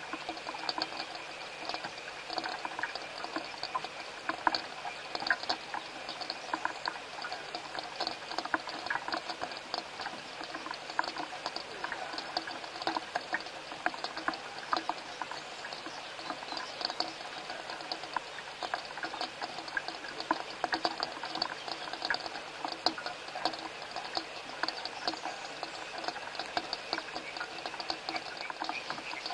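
Rain pattering and dripping close to the microphone: a dense, steady spatter of irregular small drop clicks.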